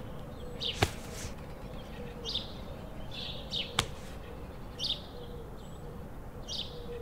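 Quiet soundtrack ambience of short, high chirps repeating every second or so over a faint steady hum, with two sharp clicks, one about a second in and one near the middle.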